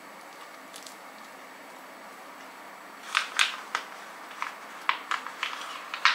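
A steady low hiss, then from about three seconds in a run of irregular sharp clicks and taps, about eight in three seconds, the last one near the end the loudest.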